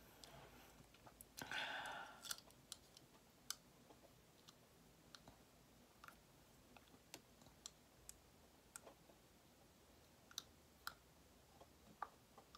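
Soft, irregular clicks of clear plastic aligner trays being pressed and snapped onto the lower teeth, with fingernails tapping on the plastic; the new set is a tight fit. A short breathy rush comes about a second and a half in.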